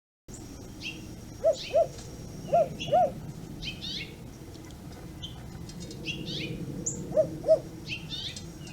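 American crow imitating an owl hoot: three pairs of short, mid-pitched hoots, two pairs in the first three seconds and the last near the end. Small birds chirp high and brief throughout.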